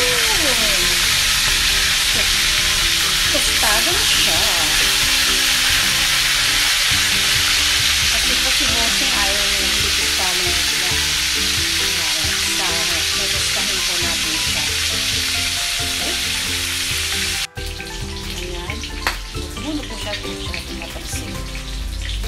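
Fish steaks frying in hot oil in a pan, a loud, steady sizzling hiss. About three-quarters of the way through it cuts out for an instant and comes back quieter, with scattered sharp pops.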